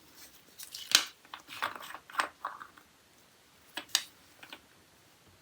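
Handling noise from nail-art work: sharp clicks and short scratchy rustles as small tools and pieces are picked up and set down. The loudest click comes about a second in, a quick run of scratchy clicks follows, and two more clicks come near the end.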